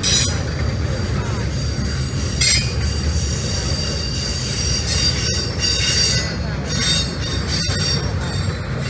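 Double-stack intermodal freight train rolling past with a steady low rumble from its cars, and high-pitched wheel squeal that comes and goes.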